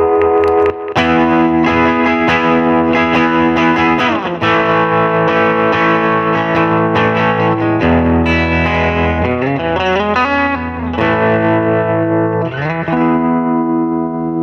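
Electric guitar played through a delay pedal with some drive, sustained chords ringing out under their echoes. From about 8 to 13 seconds in, the pitch slides up and down as the delay's repeats warp and feed back into oscillation.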